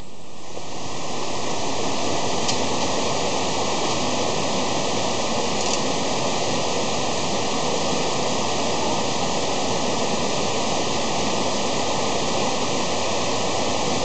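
Rushing water of a small cascade tumbling over rocks in a mountain stream, a loud, steady rush that swells up over the first second or so.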